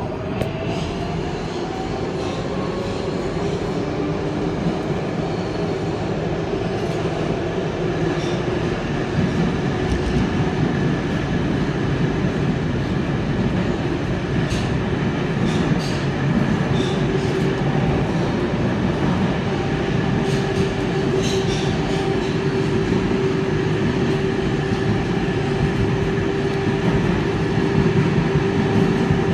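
Inside an R188 subway car running through a tunnel: the wheels rumble steadily on the rails, and the motor whine rises in pitch over the first few seconds, then holds steady tones. A few sharp clicks come around the middle, and the noise slowly grows louder.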